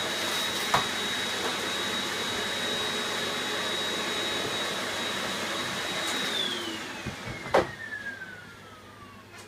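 Vacuum cleaner running with a steady high whine, then switched off about six seconds in, its motor winding down as the whine falls in pitch. A click about a second in and a louder knock near the end.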